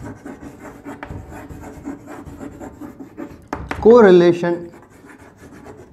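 Chalk writing on a blackboard: quick scratching and tapping strokes as words are written out, broken by a single spoken word about four seconds in.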